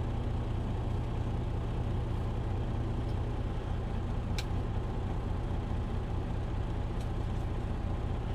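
A semi truck's engine idling steadily, a low even hum heard from inside the cab, with a couple of faint clicks.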